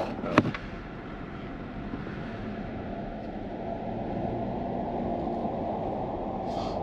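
Steady low road and engine rumble of a Toyota 4Runner driving, heard from inside the cabin, with a single sharp click about half a second in.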